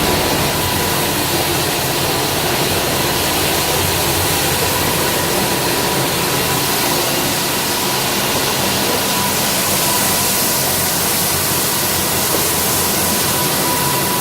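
Automatic carpet-washing machine running: a steady, loud, even mechanical noise with a thin steady whine.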